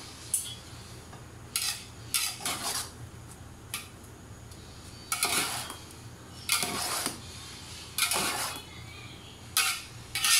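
Metal spatula and fork scraping and clanking against a large metal pot as noodles are tossed, in irregular strokes about once a second.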